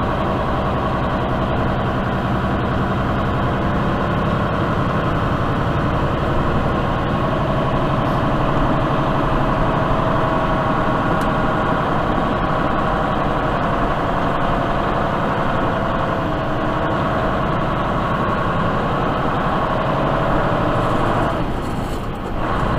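Semi-truck's diesel engine running, heard from inside the cab as the rig drives slowly over snow, a steady drone whose pitch rises a little at times. The sound dips briefly near the end.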